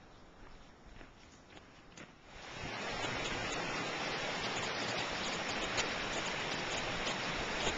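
A few faint footfalls on a gravel trail. About two and a half seconds in, a rushing mountain stream comes in loudly and runs steadily: water tumbling over rocks close by.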